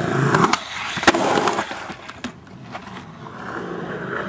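Skateboard wheels rolling on concrete, with a few sharp clacks of the board, the loudest about a second in. The rolling dies down in the middle and builds again near the end.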